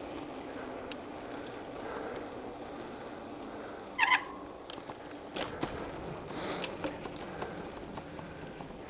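Steady rolling noise of a bicycle ride, tyres and air rushing past, with one short, loud, high chirp about four seconds in and a few light clicks after it.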